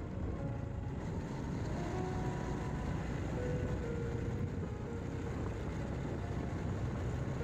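Motorcycle running steadily at road speed, a continuous low rumble heard from on board.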